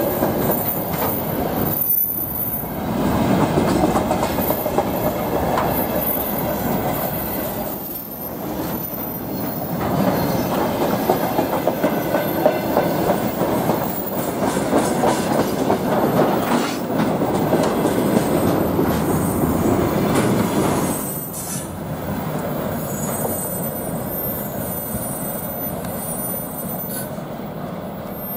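A freight train's wagons rolling past close by at speed: a dense wheel-on-rail rumble with rapid knocks over the rail joints, briefly dipping between wagons. It turns quieter for the last quarter as the end of the train goes by.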